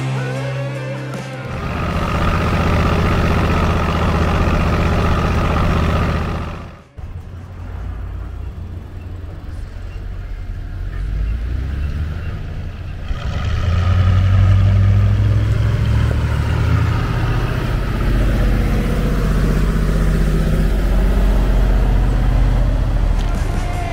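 4x4 diesel truck engine running under load, a steady low rumble. It cuts off abruptly about seven seconds in, returns, and grows louder from about fourteen seconds on.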